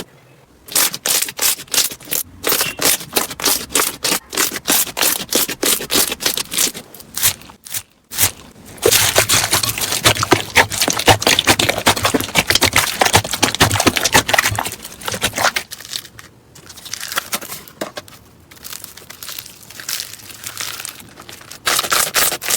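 Crunchy slime being squeezed and pressed, giving rapid sharp crackles and pops. About eight seconds in it becomes a dense, continuous crackling, which eases to softer, sparser crackles after about fifteen seconds.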